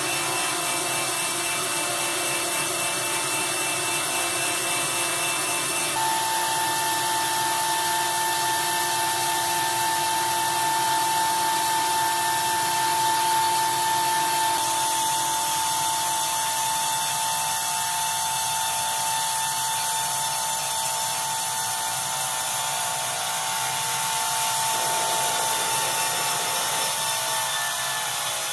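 A power tool working wood: a steady whine over a rough grinding, rubbing noise. The tone shifts abruptly about six seconds in and again about halfway through.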